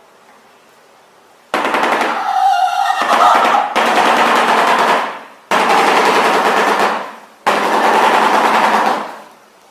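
Shoebill clattering its bill: rapid machine-gun-like rattling in three loud bouts of a few seconds each, starting about a second and a half in.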